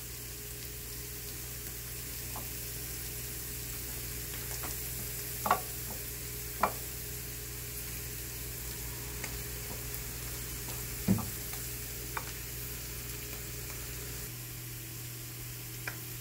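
Ginger, garlic and shallots sizzling gently in olive oil on a low flame, a steady hiss, while a wooden spatula stirs spice powders and water into a paste in a glass dish, with a few light knocks of the spatula against the dish.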